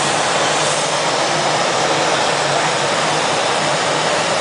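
Steady, even rushing noise of gas burners in a hot-glass studio (a glowing glory hole and a hand torch flame), with a low steady hum beneath.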